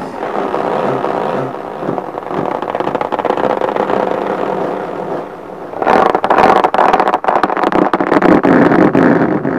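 Rubber balloon pressed against the microphone being rubbed and scratched by fingertips, giving a dense rumbling rustle that turns louder and scratchier about six seconds in.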